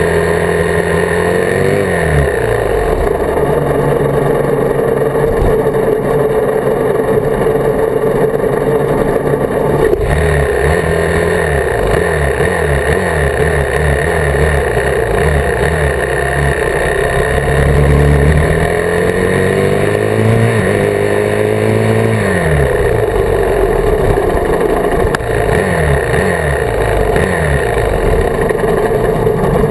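Dirt bike engine running under way, its pitch climbing and dropping repeatedly as the rider accelerates, shifts gears and eases off.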